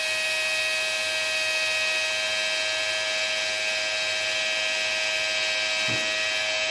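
Small electric pump running steadily with an even, high-pitched whine as it pumps windshield washer fluid through a hose into a tractor tire as liquid ballast.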